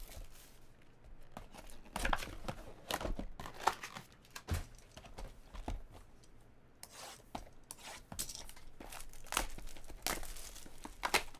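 Trading card packaging being torn open and crinkled by hand, a series of short irregular rips and crackles as the cards inside are handled.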